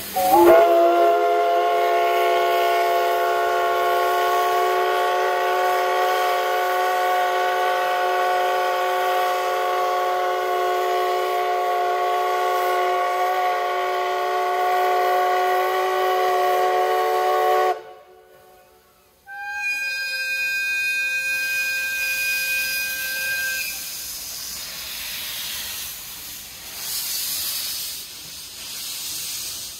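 JNR Class C61 No. 20 steam locomotive's whistle blown in one long blast of about seventeen seconds, several steady tones sounding together and sliding up in pitch as it opens. It cuts off, and about a second and a half later the EF65 501 electric locomotive's horn gives a higher-pitched blast of about four seconds. Hissing steam follows as the train departs.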